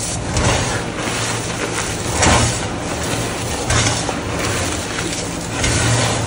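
Hands crushing and squeezing loose powdered glitter gym chalk: a gritty, crumbly crunching that comes in uneven surges every second or so.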